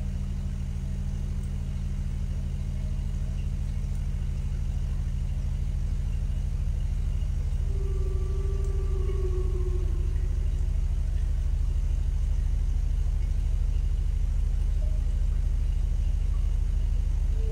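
Low, steady rumbling drone of a horror ambience sound effect, slowly growing louder, with a faint eerie tone that slides downward about halfway through.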